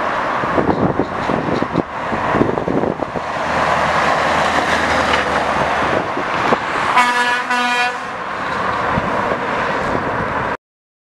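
Straight-piped Scania V8 truck driving past with an open exhaust, then two short horn toots about seven seconds in. The sound cuts off suddenly near the end.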